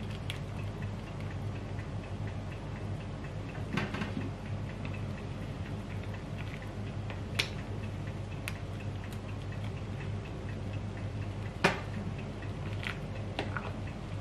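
Black nylon ladle knocking against a stainless steel pot and its lid while cooked fish and aromatics are scooped out of simmering broth: a handful of sharp, irregular clicks, the loudest one near the end, over a steady low hum.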